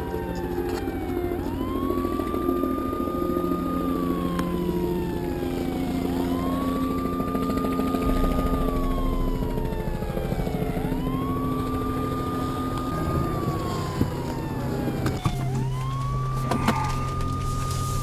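Emergency vehicle siren in wail mode: a tone that sweeps up quickly, holds briefly, then slowly falls, repeating about every four and a half seconds over a low steady drone.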